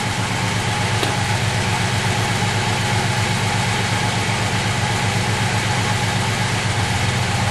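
1967 Oldsmobile Delmont 88's Olds 350 two-barrel V8 idling steadily, warming up after a cold start.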